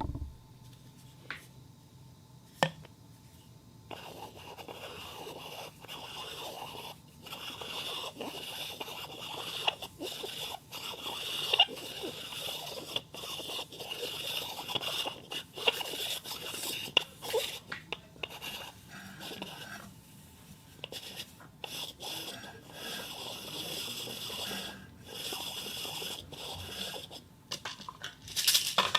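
A ball rolling around inside a cup spinning on a turntable, made as a foley sound: a continuous rolling, scraping rattle with many small clicks, starting about four seconds in after two sharp clicks.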